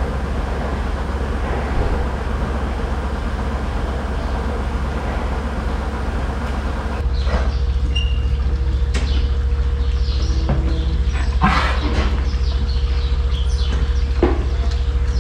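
Dairy milking equipment running with a steady low drone. About seven seconds in the sound changes, and metal clanks and knocks and a few short high squeaks come in over the drone.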